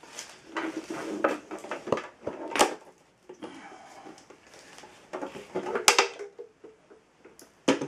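Irregular knocks, clunks and rustling from the head assembly of a WEN benchtop drill press being handled and lifted toward the column, with the two sharpest knocks about two and a half and six seconds in.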